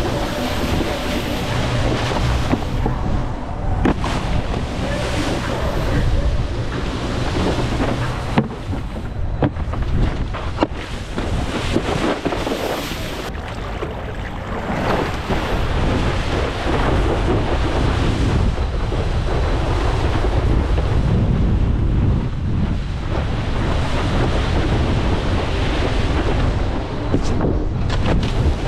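Wind buffeting a helmet-mounted camera's microphone while wakeboarding, over the rush and spray of the board cutting across the water, with a few sharp knocks.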